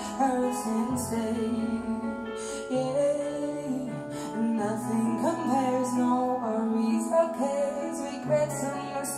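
Slow ballad with a woman singing over piano, played back through a pair of Mordaunt-Short Aviano 2 stand-mounted speakers and heard in the room.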